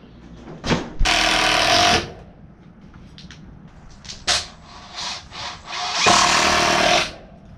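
Power drill running in two bursts of about a second each, driving screws while a wooden door is fitted into its frame, with a few light knocks between the bursts.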